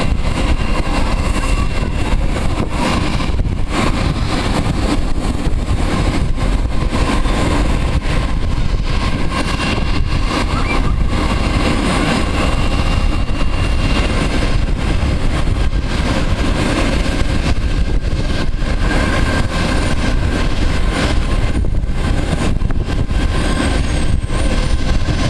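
Airbus A321 jet engines running with a steady, loud rumble and a faint constant whine.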